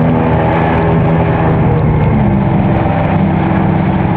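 Kawasaki STX-R jet ski's two-stroke engine running steadily at speed, its pitch dipping slightly about halfway, over a hiss of rushing water and wind.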